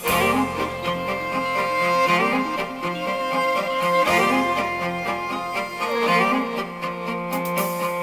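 Instrumental background music with slow, held chords over a low bass line that changes every few seconds.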